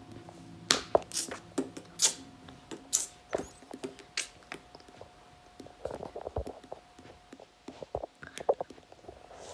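Handling noise from a handheld phone: scattered sharp clicks and knocks, irregular, over a faint steady tone that stops about three-quarters of the way through. No music is heard.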